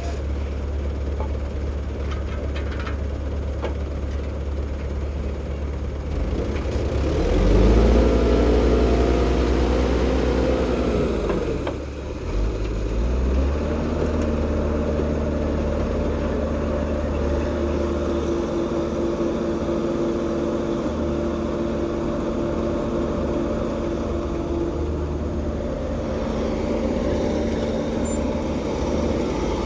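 Vehicle engines running at a road works. About seven seconds in, one engine revs up, holds, and drops away near twelve seconds; another engine then runs with a steady note.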